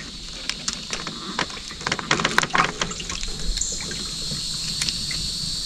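Scattered light clicks, taps and water drips as a just-caught bream is handled out of the water, over a steady high buzz of insects.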